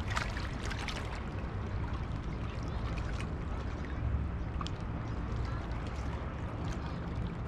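Small waves lapping and gurgling against a rocky shoreline, with scattered little splashes and clicks, over a steady low rumble.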